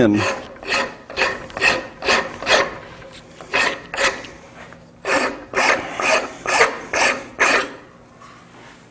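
Hand rasp cutting wood on an axe handle, about two strokes a second, in two runs with a short pause about four seconds in. The handle is being thinned to fit the axe head's eye.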